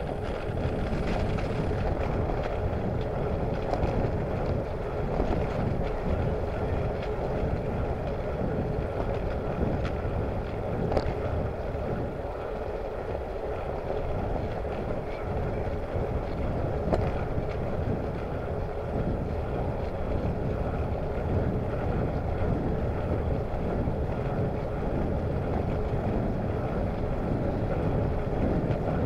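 Steady wind noise on a bicycle's handlebar-mounted camera microphone, mixed with the rolling rumble of the tyres on a tarmac path while riding. One light click about a third of the way in.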